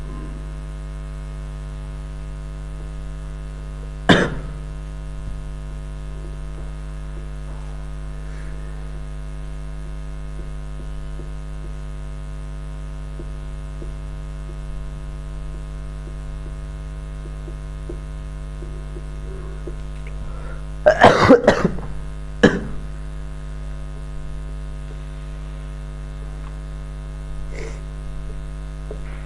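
Steady electrical mains hum. Over it come a sharp sound about four seconds in, a loud burst of short sounds about twenty-one seconds in, another a second later, and a faint one near the end.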